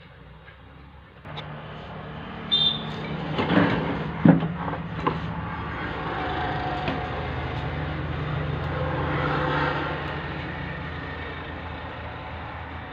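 A motor vehicle's engine running steadily, swelling and then easing off, with a few sharp knocks about three to four seconds in.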